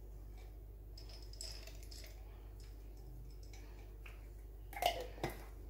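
Quiet steady room hum, then near the end a quick cluster of light clicks and taps from a small plastic spice bottle of nutmeg being handled over the mixing bowl.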